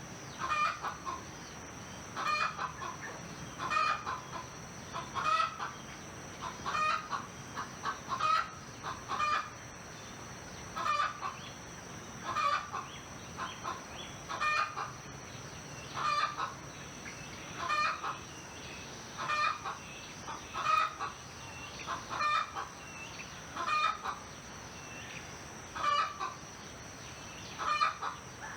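Domestic fowl calling over and over, a short burst of clucking notes about every second and a half, with a steady high-pitched tone running underneath.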